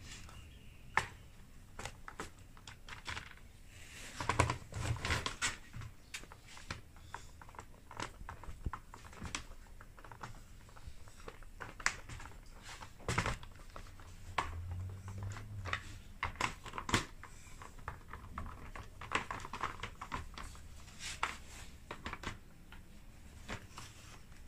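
Irregular clicks and light taps of hand work on an electric heater's metal casing, with short bursts of scraping near the start and near the end, as the cover screws are driven in with a screwdriver.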